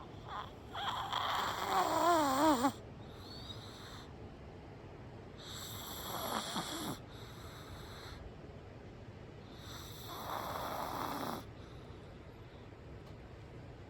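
Loud snoring: three long snores about four to five seconds apart, the first the loudest, with a wavering pitch.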